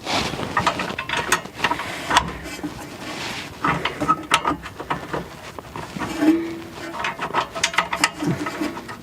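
Hand ratchet wrench clicking in short irregular runs as a bolt is tightened.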